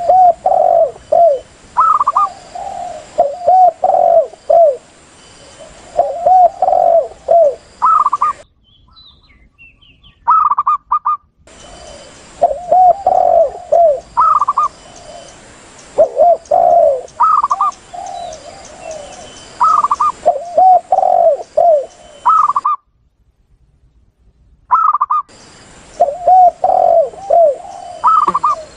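Recorded dove calls, spotted dove and zebra dove, cooing in repeated phrases: quick higher notes followed by runs of lower arching coos. The bouts are spliced, with a recording hiss behind each bout and short breaks between them.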